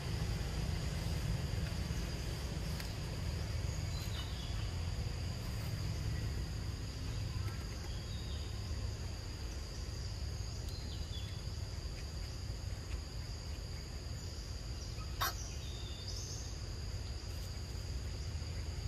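Forest ambience: a steady high insect drone with a few short falling bird chirps over a low steady rumble. A single sharp click comes about fifteen seconds in.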